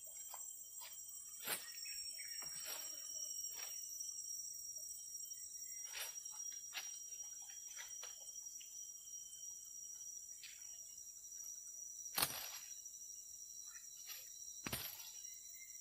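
Steady high-pitched insect chorus, with scattered knocks and clicks from handling at the bank, the sharpest one late on.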